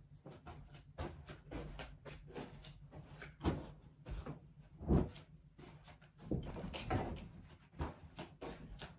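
Knocks, thumps and rustles of laundry being loaded into a washing machine, with a door or lid being handled. The strongest thumps come about a second, three and a half seconds and five seconds in, over a low steady hum.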